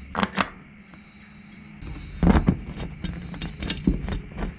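Hands fitting nuts and bolts onto a copper busbar and its insulator standoffs, very close to the microphone: a few small clicks, a quieter moment, then from about two seconds in a busier run of clicks and knocks with rubbing handling noise underneath.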